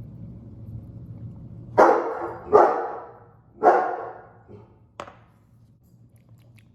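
A dog barking three times in quick succession, followed about a second later by a single short click.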